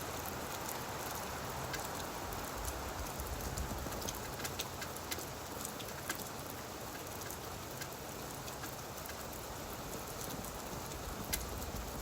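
Steady gentle rain falling on leaves, an even patter with scattered sharp ticks of single drops.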